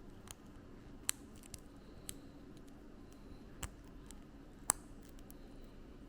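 Plastic building-block pieces clicking as they are handled and snapped together: about six short, sharp clicks at uneven intervals, the loudest about a second in and near the end, over a faint steady room hum.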